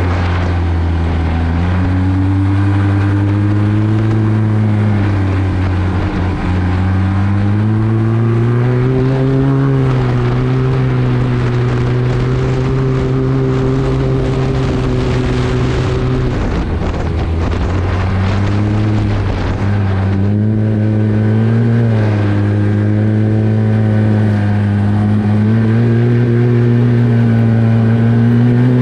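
Arctic Cat 1100 Turbo snowmobile's turbocharged four-stroke engine running at trail speed, its pitch dropping and climbing again several times as the throttle is eased off and reapplied.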